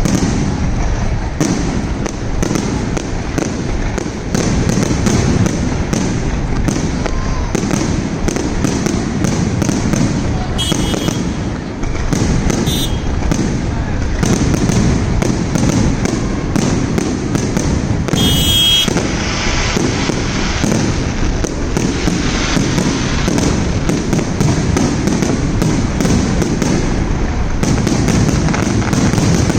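Fireworks display: a continuous barrage of bangs and crackles, many reports in quick succession.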